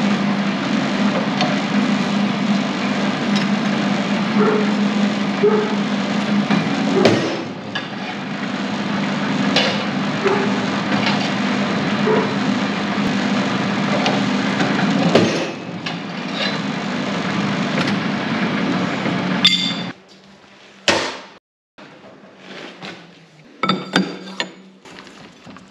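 Workshop machinery running off a three-phase converter: a steady hum with scattered knocks and taps, stopping suddenly about twenty seconds in. A few sharp knocks follow in the quiet.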